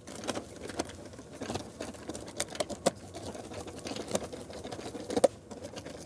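Hand screwdriver tightening the mounting screws of a Leviton Decora Edge light switch: a run of small irregular metal clicks and scrapes, with a few sharper clicks, the loudest about five seconds in.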